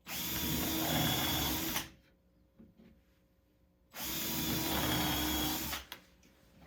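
Power drill with a number 8 countersinking bit boring two pilot holes into a wooden board, each a steady run of the motor lasting about two seconds, the second starting about four seconds in. The countersink bit cuts the screw hole and its countersink at once so the wood does not split.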